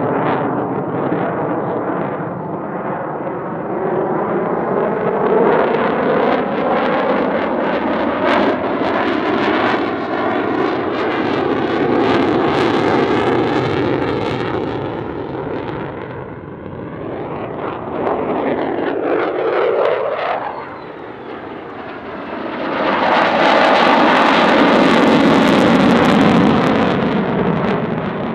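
Lockheed Martin F-35A's single F135 afterburning turbofan in a demonstration flight. Continuous jet roar swells and eases as the jet manoeuvres, with a sweeping rise and fall in pitch about two-thirds of the way through. It is at its loudest and harshest near the end with the afterburner lit.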